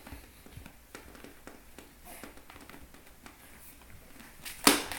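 A cat toy on a string being handled, with faint light taps and rustles, then flapped hard near the end with one sharp, loud flap.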